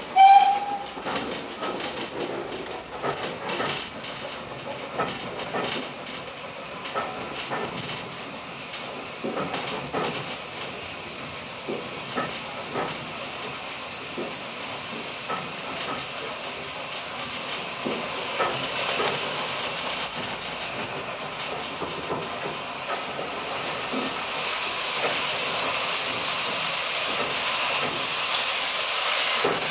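Steam-hauled heritage train running along the line, heard from inside the rear carriage: irregular clicks and knocks of the wheels over the rail joints, with a brief high squeal right at the start. About two-thirds of the way through, a steady hiss of steam from the locomotive grows louder and stays.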